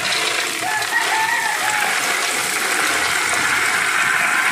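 Raw peanuts frying in hot cooking oil in a pan: a steady, loud sizzle of oil bubbling around the nuts.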